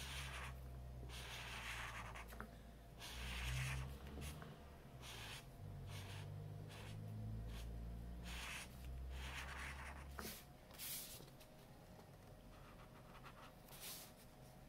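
Felt-tip marker nib rubbing across paper in a string of short, scratchy colouring strokes, each under a second, thinning out after about ten seconds. A low rumble runs under the strokes for most of the first ten seconds.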